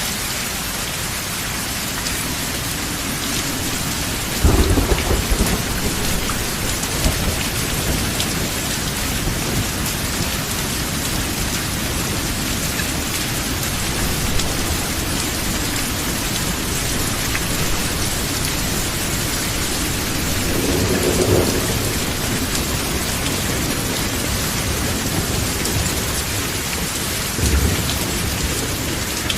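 Steady rain hissing, with thunder rumbling three times: the loudest a few seconds in, a softer roll about two-thirds through, and a short one near the end.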